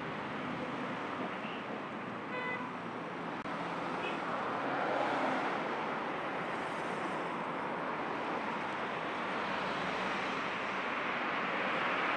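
Street traffic noise, a steady rush of passing cars, with a short car horn toot about two seconds in.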